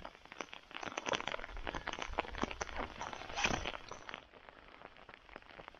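Footsteps of a person walking, a fast irregular run of small crackles and knocks that thins out after about four seconds.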